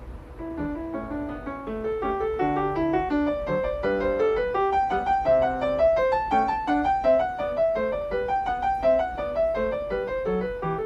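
Background piano music, a quick, busy run of many short notes.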